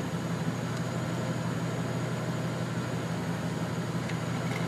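Vehicle engines idling with a steady low hum.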